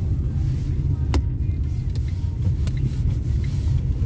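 Steady low engine and road rumble inside a moving car's cabin, with one sharp click about a second in.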